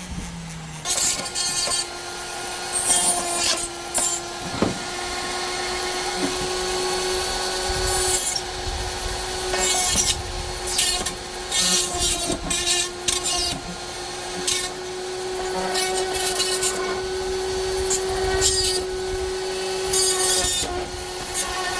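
Flex shaft rotary tool running at high speed with a steady whine, a cutting disc biting in again and again in short gritty bursts as it grinds metal pieces out of a 3D-printed part.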